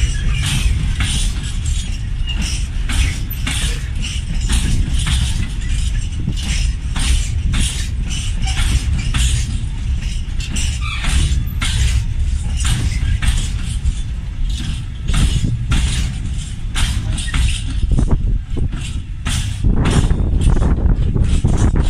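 A train passing close by: a heavy low rumble with a quick, uneven run of sharp wheel clacks over the rail joints.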